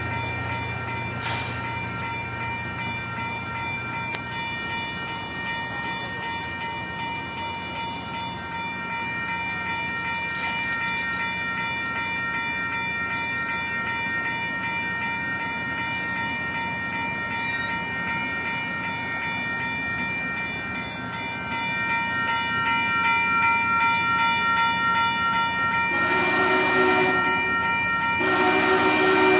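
Passenger cars of a steam excursion train rolling through a grade crossing. The crossing's warning bell rings steadily over the rumble of the wheels. Near the end come two short blasts of Union Pacific 844's steam whistle from the head of the train.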